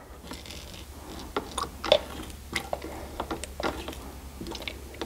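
Dispenser pumps on TotalBoat epoxy resin and hardener bottles being pressed, a series of irregular plastic clicks and knocks as metered squirts go into a mixing cup. A steady low hum runs underneath.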